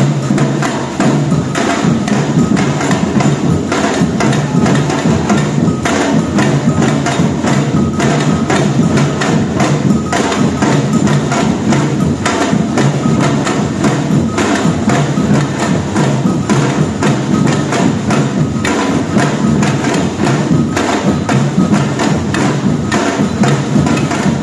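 Batucada percussion band playing a steady, unbroken drum rhythm, with dense repeated strikes over deep drum beats.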